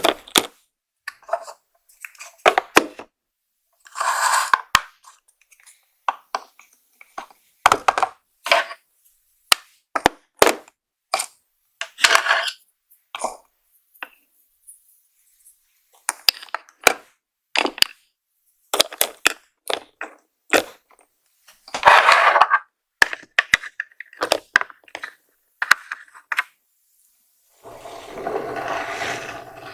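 Makeup packaging and small plastic cases being handled: irregular sharp clicks and taps, with brief rustling or scraping about 4, 12 and 22 seconds in and a longer rustling stretch near the end.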